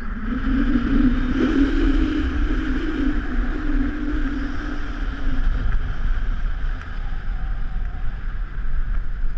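Linked inflatable snow tubes sliding fast down a groomed snow run: a steady rumbling hiss of the tubes on the snow, with wind buffeting the microphone.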